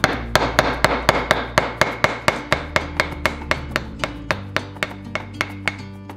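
Wood chisel cutting into a wooden paddle grip, heard as a quick run of sharp, even taps, about four a second. Background music plays underneath.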